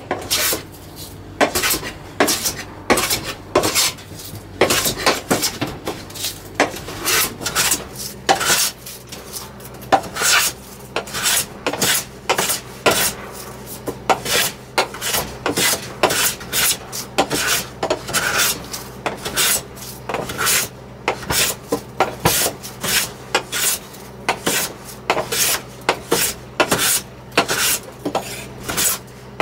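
Metal hand plane shaving dark stain off a wooden tabletop, planing it back to bare wood. Quick, repeated short scraping strokes, roughly one to two a second.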